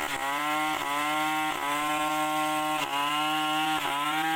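Two-stroke chainsaw held at full throttle in a big hardwood trunk, its steady high whine dipping briefly in pitch about once a second as the chain loads.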